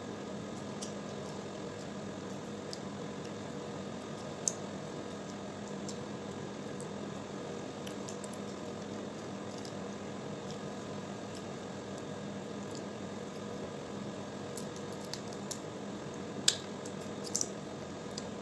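Cooked crab eaten by hand: wet squishing and sucking as meat is pulled from the shell and eaten off the fingers, with a few sharp shell cracks, one a few seconds in and the loudest two near the end, over a steady background hum and hiss.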